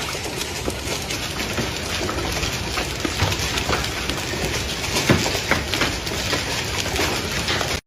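Heavy rain pouring down in a steady loud rush, with scattered sharp hits of drops or splashes.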